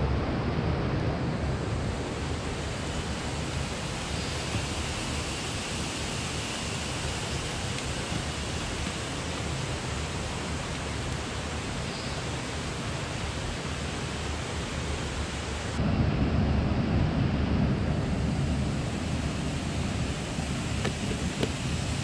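Steady rushing noise of a river flowing over rocks, growing louder and deeper about three-quarters of the way through.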